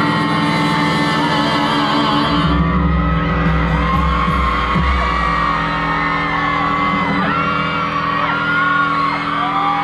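Live pop band music with singing over sustained chords; a heavy bass comes in about two and a half seconds in, and the crowd whoops along.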